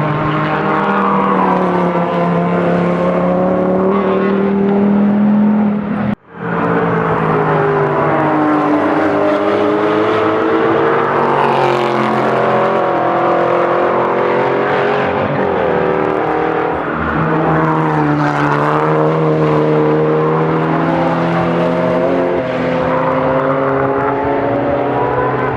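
Car engine driven hard on track, its note climbing under acceleration and dropping at gear changes and lifts, over and over. A sudden short gap cuts the sound about six seconds in.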